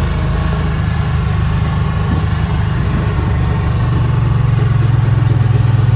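Engine of a side-by-side utility vehicle running steadily, heard from its seat, with a low even hum that grows a little louder near the end.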